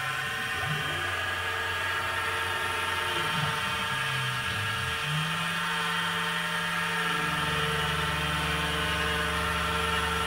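PM-25MV milling machine with CNC axis motors: the spindle whine runs steady while the axis motors whir, their pitch rising and falling as the table and head move. About seven seconds in the gliding stops and settles into a steady lower hum.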